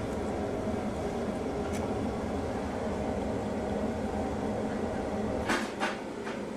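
Steady mechanical hum of room background, like a fan or ventilation, with a few short clicks near the end as the steel sphere half is handled.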